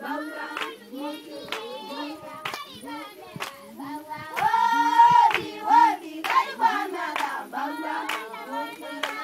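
Samburu women singing a welcoming song together, with hand claps about once a second keeping the beat. A loud held note stands out about halfway through.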